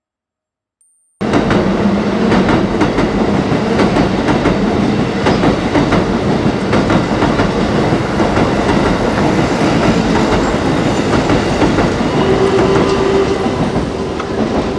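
Train passing directly overhead on an elevated track: a loud, dense rumble and wheel clatter that starts suddenly about a second in, with a steady hum near the end.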